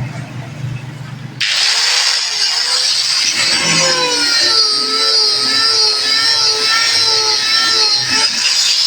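Angle grinder with a newly fitted armature, its disc starting to grind into material about a second and a half in: a sudden loud, high grinding noise with a wavering whine underneath that holds while it cuts.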